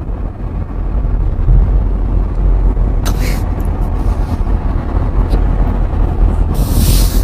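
Steady low road and engine rumble inside a moving car's cabin, with two short hissing bursts, one about three seconds in and one near the end.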